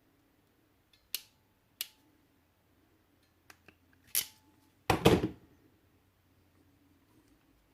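JST crimping tool clicking as its jaws close on a small terminal and servo wire: a few sharp clicks, then a louder, heavier clunk about five seconds in as the crimp is squeezed home.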